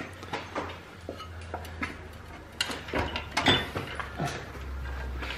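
Scattered metal clinks and knocks as the unbolted gearbox is handled on a transmission jack under the car, over a low steady hum.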